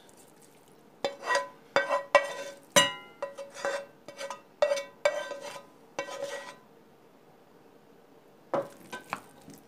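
Spoon scraping and knocking against a nonstick frying pan and a ceramic plate as grated, sautéed zucchini is scraped out of the pan: a run of sharp knocks and scrapes, several with a brief ringing tone, then a pause and a few more knocks near the end.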